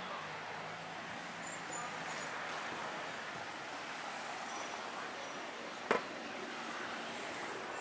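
Street traffic ambience: car engines running slowly nearby with a low steady hum, under a general wash of street noise. A single sharp click sounds about six seconds in.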